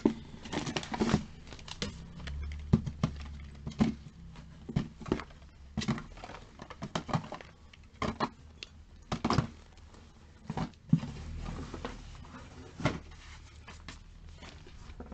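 Handling of small cosmetic products: plastic bottles and small cardboard boxes picked up and set down, making irregular taps, knocks and rustles, some sharper clacks among them.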